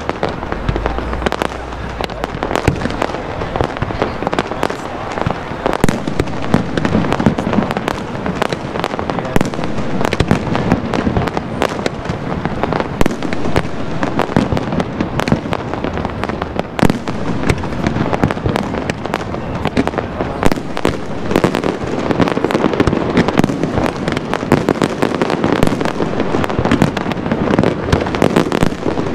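Aerial fireworks display: shells bursting in a dense, unbroken run of bangs and crackles.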